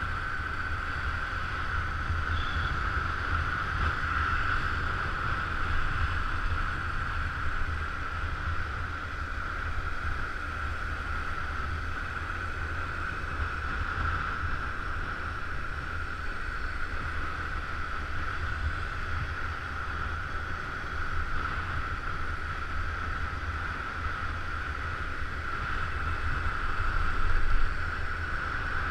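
Steady riding noise from a motor scooter on the move: wind rushing over the microphone over the low hum of the engine and road, with a brief louder swell near the end.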